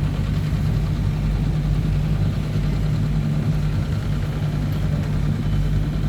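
River tourist boat's engine running steadily, heard on board as a constant low hum.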